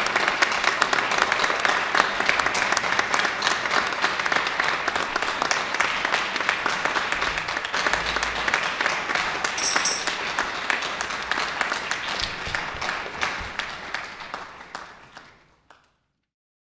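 Audience and performers applauding, a steady dense clapping that fades out over the last couple of seconds.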